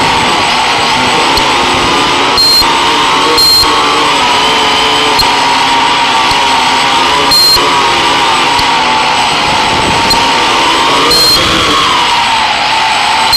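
Octocopter's eight electric motors and propellers running with a steady whine, the pitch wavering up and down as the throttle changes. Four brief bursts of hiss cut across it.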